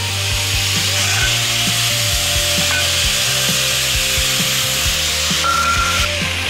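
Angle grinder with a cut-off disc cutting through a steel motorcycle exhaust header pipe, running steadily and easing off near the end as the pipe is cut through. Background music with a steady beat plays under it.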